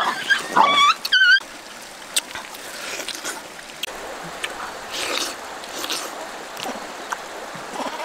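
Young macaque monkeys giving a few short, high, rising squeals in the first second and a half. After that come soft wet handling and eating noises from fresh pineapple being pulled apart and chewed, with a few small clicks.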